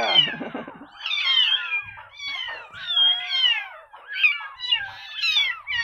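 Several orphaned kittens about two to three weeks old mewing during a bottle-feed. Their high-pitched calls follow one another and overlap, the hungry cries of kittens that have lost their mother's milk.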